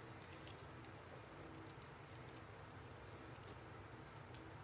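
Faint crinkling and small ticks of dry, papery garlic skin being peeled off a crushed clove by hand, over a low steady room hum.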